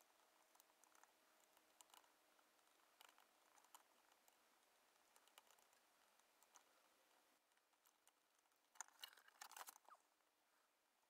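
Near silence with faint scattered clicks, and a short cluster of louder clicks and scrapes about nine seconds in: small parts and a soldering iron being handled against a circuit board.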